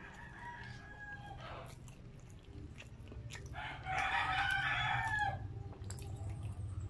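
A rooster crows in one long call that starts about three and a half seconds in and is the loudest sound here, after a fainter call that trails off in the first two seconds. Soft mouth clicks come from someone chewing a soft bun close to the microphone.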